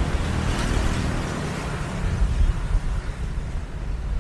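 Street traffic going by: engine rumble with a steady hiss of tyres and air.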